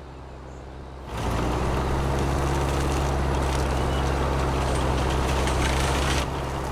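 Tractor engine running steadily while its disc mower cuts grass. It starts about a second in as a low, even drone and drops a little in level near the end.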